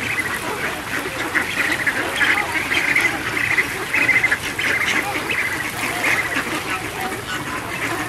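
A large flock of ducks quacking nonstop in a dense, overlapping chorus as they crowd and squabble over food, with goose-like flamingo honks mixed in.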